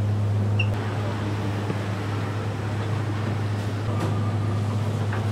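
Gas burner under a large pan-fried-bun pan running with a steady low hum, just after being turned on.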